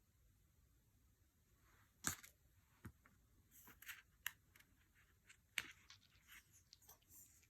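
Oracle cards being handled in a flip-through: after about two seconds of near silence, a string of light card clicks, snaps and soft rustles, with the sharpest snaps about two seconds in and again about five and a half seconds in.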